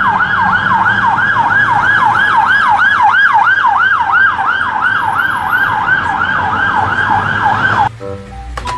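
Siren of a UK police van (Ford Transit Custom) on an emergency blue-light run, sounding a fast yelp of about three rising-and-falling sweeps a second. It cuts off sharply about eight seconds in.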